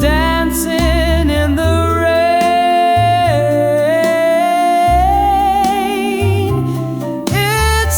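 Slow 1950s-style doo-wop ballad: long, wordless sung notes with vibrato over a bass line and sustained chords.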